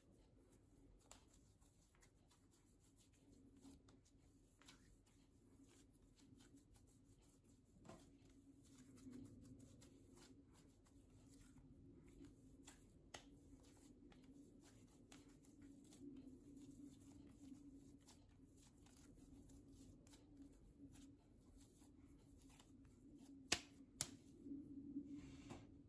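Faint, soft squeezing and slapping of hands kneading mugwort shiratama rice-flour dough over a bowl, over a steady low hum. Two sharper clicks near the end.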